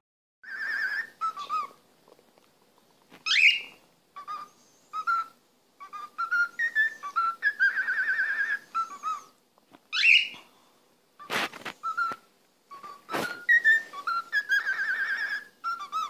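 Cockatiel whistling a tune in short phrases: some are warbling trills, some are quick upward sweeps, with brief pauses between them. Two sharp clicks come in the second half.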